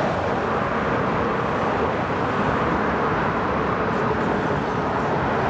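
Steady road traffic noise, an even wash of passing vehicles with no single pass standing out.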